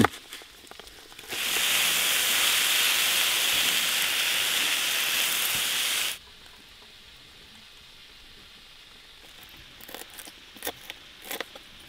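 Frozen bell peppers and cauliflower dropped into hot butter in a cast iron skillet, sizzling loudly from about a second in and cutting off suddenly about six seconds in. A few faint knife taps on a cutting board come near the end.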